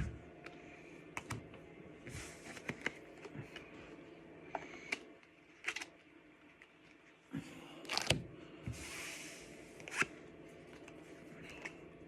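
Pokémon trading cards and packaging being handled on a table: scattered light clicks and taps, with a few short rustles, the loudest clicks about eight and ten seconds in.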